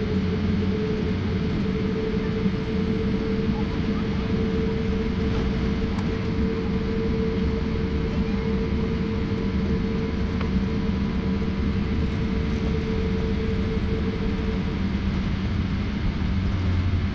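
Cabin noise inside a jet airliner taxiing on its engines: a steady low drone with a held hum over it that stops about fifteen seconds in.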